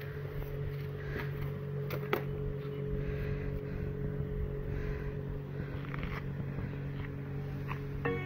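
Cardboard boxes and camping gear being handled and packed, with scattered knocks and rustles and a sharp knock about two seconds in, over a steady low motor hum.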